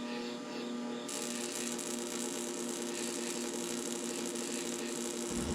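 Burner spark igniter buzzing with a rapid, even snapping, over the steady hum of the combustion air running. A hiss joins about a second in.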